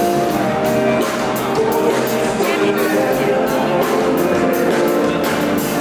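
Music with a steady beat, cymbal or hi-hat strikes keeping time under a sustained melody.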